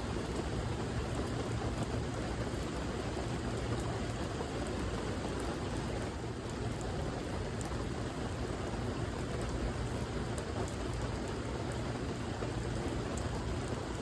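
Steady rain falling, an even hiss with faint drop ticks through it.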